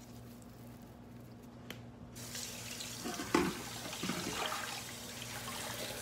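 Kitchen tap turned on about two seconds in, water running steadily into a sink, with a few light knocks while it runs.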